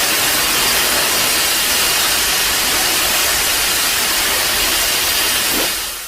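Kaiju sound effect: a loud, steady rushing hiss that begins to fade away near the end.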